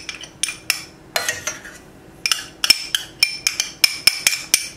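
Metal teaspoon clinking and scraping against a small glass bowl as yellow mustard is scraped out of it into a saucepan. It makes a quick, irregular string of light ringing clinks.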